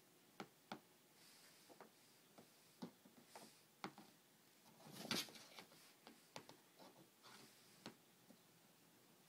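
Faint, scattered taps and scrapes on a cardboard box as a thin teasing stick is worked through a slot in its side, with a longer scratchy rustle about five seconds in.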